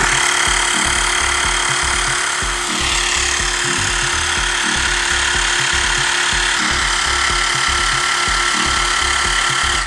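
Xiaomi portable electric air pump's compressor motor running steadily while it inflates a yoga ball through a needle adapter. Its pitch shifts slightly about three seconds in, a thin whine joins past the halfway mark, and it cuts off suddenly at the end.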